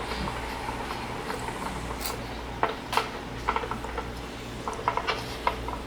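Scattered light clicks and taps of hands and a cloth working over an LCD panel while adhesive residue is wiped off, over a faint steady hum. The taps grow more frequent about halfway through.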